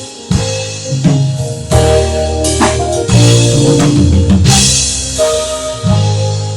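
Live band playing through a stage PA: drum kit hits with bass drum and snare, over a bass line and sustained keyboard chords, with no vocals.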